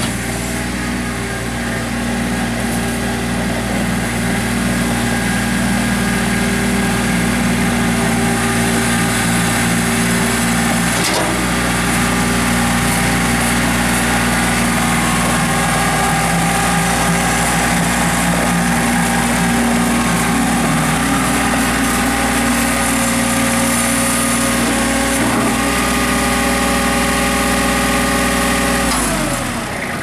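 Kubota B21 compact tractor's three-cylinder diesel engine running steadily as the tractor drives and works its loader; near the end the engine speed drops and the sound falls away.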